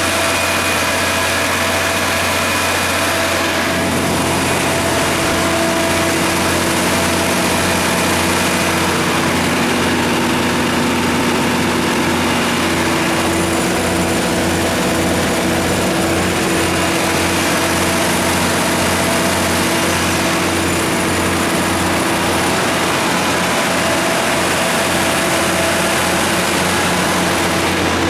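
Katolight 200 kW natural gas generator set, its Detroit Series 60 inline-six gas engine running at a steady speed with a constant low hum.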